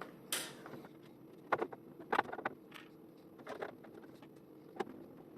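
A screwdriver seating small motherboard screws into metal case standoffs: a handful of faint, scattered clicks and taps with a brief scrape near the start.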